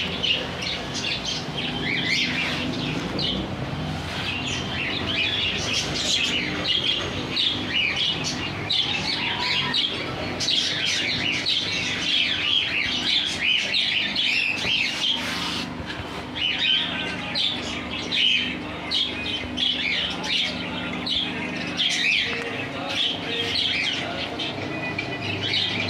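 Many small birds chirping continuously in quick overlapping calls, over a steady low hum.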